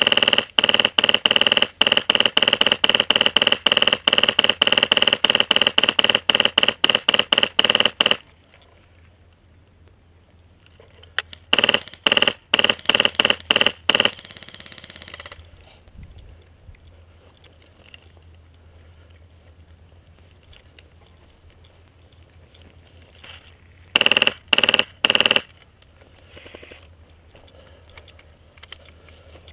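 A PolarStar high-pressure-air airsoft rifle firing close by: rapid semi-automatic shots, several a second, in one long string of about eight seconds, then a shorter string a few seconds later and a brief burst of about five shots near the end.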